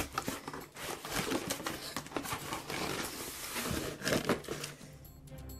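Rustling of a cardboard box and plastic toy parts being handled, with scattered clicks and knocks, the sharpest about four seconds in.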